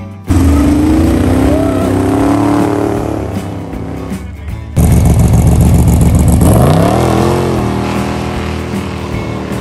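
Two hot rods accelerating hard away from a car show: a classic muscle car revving up and pulling away, then, about five seconds in, a Ford Model A-style hot rod coupe doing a burnout, its engine rumbling and revving sharply up before fading off.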